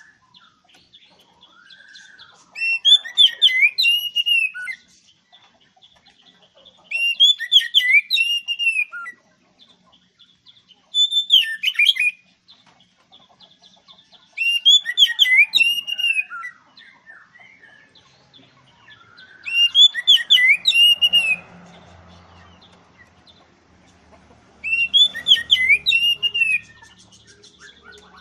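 Oriental magpie-robin (kacer) singing loudly: six whistled song phrases of about two seconds each, full of quick rising and falling notes, with short pauses between them.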